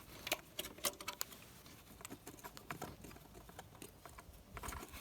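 Irregular light clicks and taps of hands and small tools handling parts in a van's engine bay, several in quick succession about the first second and scattered after.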